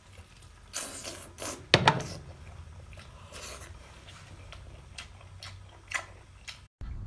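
Close-up wet eating noises of someone biting and chewing whole braised octopus: a few short smacks and slurps, the loudest about two seconds in, then quieter chewing with small clicks.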